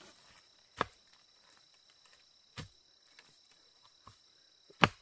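Three sharp knocks roughly two seconds apart, the last the loudest, over a faint steady high insect drone.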